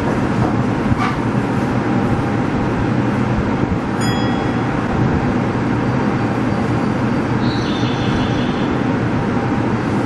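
Steady hum and rumble of a Meijo Line subway train standing at a station, with its onboard equipment running. Brief high tones sound about four seconds in and again near the end.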